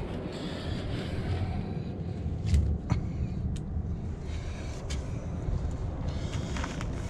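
A flat stone cover being lifted off a small oil-seep well hole, with a few light knocks of stone on stone, the loudest about two and a half seconds in, over a steady low rumble.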